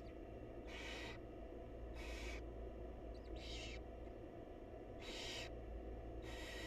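Barn owl nestlings' raspy, hissing begging calls: five hisses of about half a second each, one every second and a half or so. A steady low hum runs underneath.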